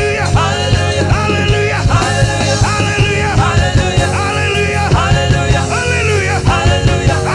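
Loud, upbeat praise-and-worship band music with a driving bass and a steady beat, under a gliding melody line.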